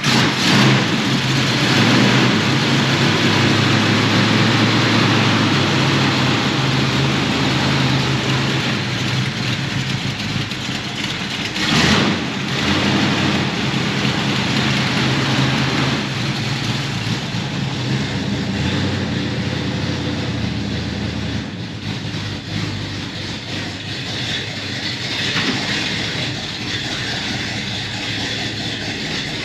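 Ford 289 High Performance V8 of a 1965 Mustang GT350H idling steadily just after a cold start, with a brief louder surge about twelve seconds in. It is running rich, which the owner puts down to a tune-up or carburetor adjustment being needed, or to the engine being cold.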